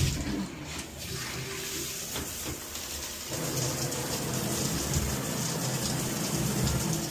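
Water spraying from a newly fitted shower head, running while it is checked for leaks. The spray's sound shifts about three seconds in, getting deeper and less hissy.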